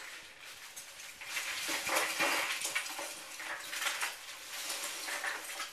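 Ice cubes clattering and rattling as a container is filled with ice, a dense run of hard little knocks that is busiest in the middle.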